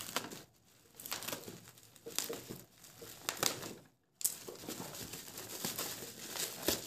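Plastic bubble wrap crinkling and rustling in irregular bursts as hands pull it back off a cardboard box, with a brief silent gap about four seconds in.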